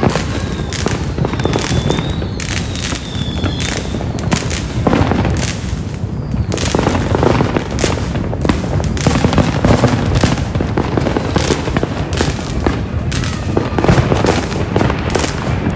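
Fireworks going off in rapid succession: continual overlapping bangs and crackling, with a wavering whistle in the first few seconds.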